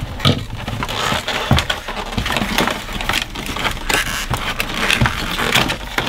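Cardboard packaging inserts being pulled and folded out of a vacuum cleaner box: continuous rustling and scraping of card with many small knocks and clicks.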